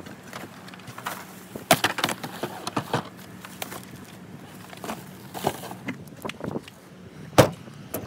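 Irregular knocks, clicks and rustling from handling newly bought tools in a plastic shopping bag, the sharpest knock a little before the end, over a faint steady low hum.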